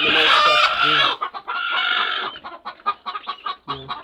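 Domestic chickens clucking and calling, with a loud, harsh call in the first second, then a run of short, quick clucks several times a second.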